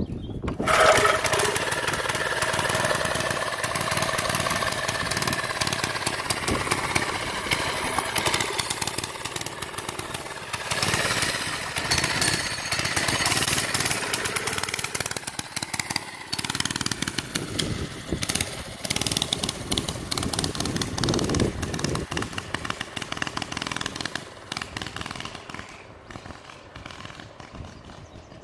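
Small single-cylinder Briggs & Stratton engine on a vintage Taco 22 mini bike running under way. It grows fainter over the last few seconds.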